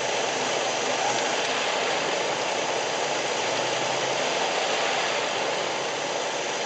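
Jeep Wrangler YJ engine idling out of gear, a steady running sound with no knock heard.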